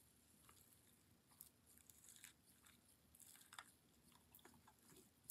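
Very faint, scattered wet clicks and squishes of a beaded sensory-goo slime being worked in its tub by hand.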